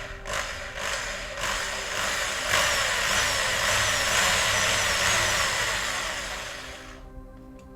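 A small electric drill runs for about five seconds, its motor whine wavering up and down, after a few sharp clicks at the start. It fades out near the end.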